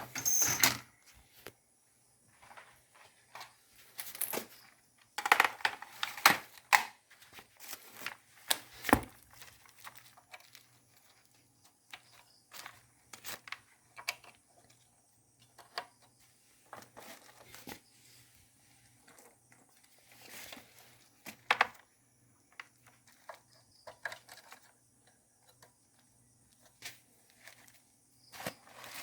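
Scattered clicks, knocks and plastic rustling of computer parts, cables and peripherals being moved around and plugged in by hand.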